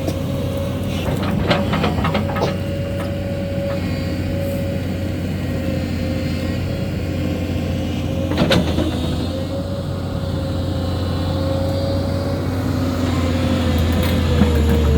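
A heavy land-clearing machine's engine running steadily, with a constant whining tone over its low rumble. Several sharp knocks and cracks come about one to two and a half seconds in, and one more just past the middle.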